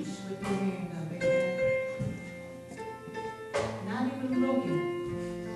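Church music: held keyboard chords with a voice singing over them, and two crashes from the drum kit, about half a second and three and a half seconds in.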